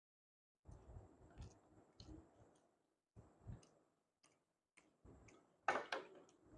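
Faint, scattered clicks and soft knocks from eating at close range, with a louder rustle about six seconds in.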